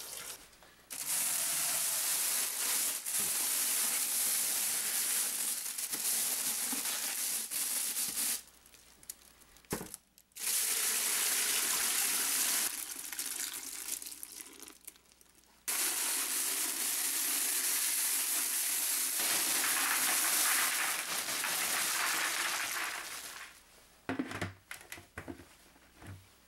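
Stretches of steady rushing water, a tap running into a kitchen sink and liquid being poured into a plastic-lined bucket, broken by short pauses. A few sharp clicks near the end as a plastic bucket lid is pressed on.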